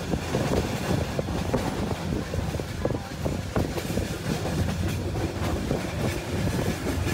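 Passenger train running along the line, a steady rumble with the wheels clattering irregularly over the rail joints, heard from inside the carriage by the window.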